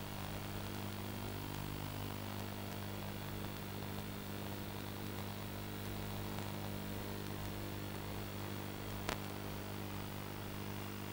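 Steady electrical hum with a hiss of static on the audio of an analog FPV video feed, unchanging throughout, with a single sharp click about nine seconds in.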